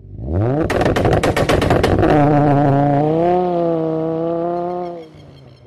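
Intro sound effect of a car engine revving up, with a rapid string of sharp pops about a second in, then a held engine note that fades out near the end.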